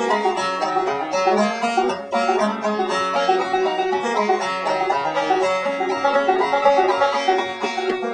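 Banjo music: a quick, steadily picked tune.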